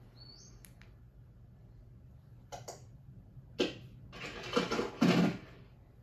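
Film sound effects of plastic toy army men on the move: a brief high squeak, then a few light knocks and a denser rattling scuffle that is loudest about five seconds in.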